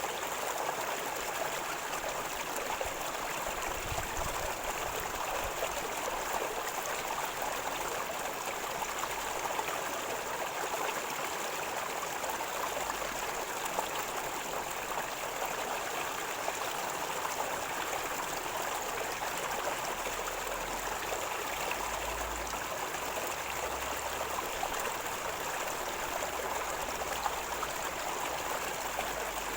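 Shallow river water flowing and gurgling over stones, a steady even rush.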